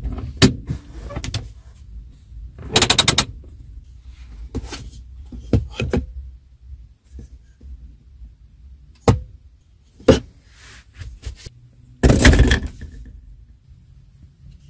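Clicks and clunks from a Haima S5's centre-console controls being worked by hand, including the handbrake lever, over a low steady hum. There are about a dozen separate knocks, with quick runs of clicks about three seconds in and again near twelve seconds.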